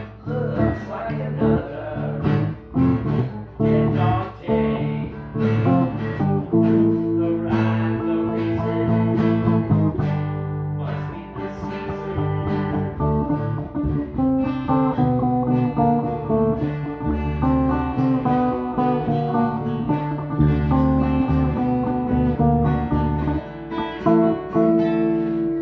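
Guitar music: a Stratocaster-style electric guitar played continuously, with changing notes.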